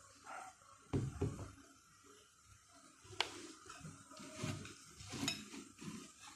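Spoon clinking and knocking against a plate while slime is being mixed, with irregular sharp knocks, the loudest about a second in and just after three seconds.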